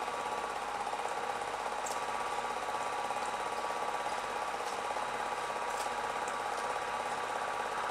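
Steady mechanical whir of an 8mm film projector running, with a few faint scattered clicks.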